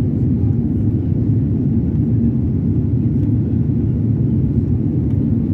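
Steady low roar of a Boeing 787's jet engines and the airflow, heard inside the passenger cabin as the airliner climbs after takeoff.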